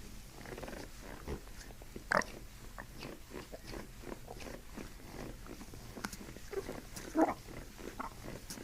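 Intestinal gurgling (borborygmi) from a person's abdomen as the ascending colon is worked by hand. It comes as a run of short, irregular gurgles, the loudest about two seconds in and about seven seconds in.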